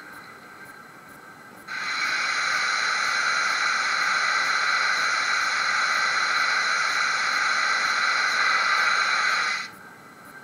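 Loud steady steam hiss from a DCC sound decoder in a model LNER P2 steam locomotive standing still. It starts abruptly about two seconds in and cuts off just as abruptly near the end.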